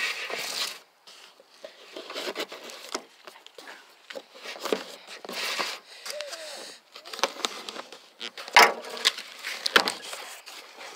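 A cardboard box being opened by hand: packing tape cut and pulled, with cardboard crackling, scraping and rustling in irregular bursts and one sharper snap a little past the middle.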